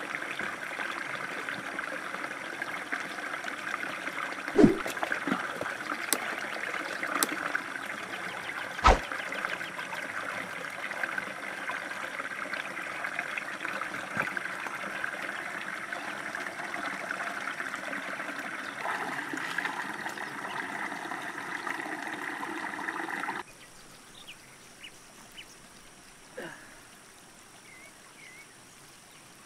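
A small rocky stream running steadily, with two sharp splashes about 4.5 and 9 seconds in. The water sound cuts off suddenly after about 23 seconds, leaving a quiet outdoor background with a few faint high chirps.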